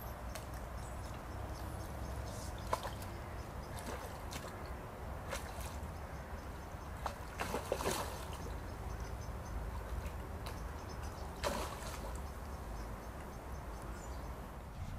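Water sloshing and lapping around a small boat, with a few scattered knocks against the boat, as an angler in it plays a hooked fish.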